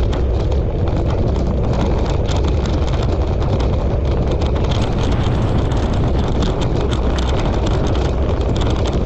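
Steady rumble and rattle of a wheeled dryland dog-sled rig rolling over a trail, with wind buffeting the microphone.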